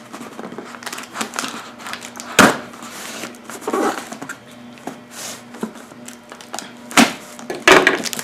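A cardboard box being cut open with a blunt knife: irregular scraping and crinkling as the blade works through the packing tape and cardboard, with a few sharp knocks.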